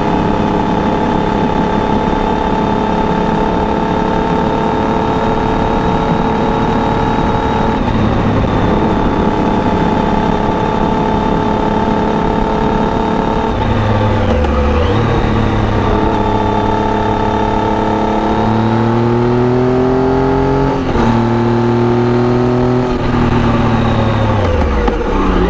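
Triumph Tiger 800's three-cylinder engine through an Arrow aftermarket exhaust, holding steady revs for the first half. In the second half the revs dip and climb with gear changes, with two quick shifts late on and the revs falling near the end.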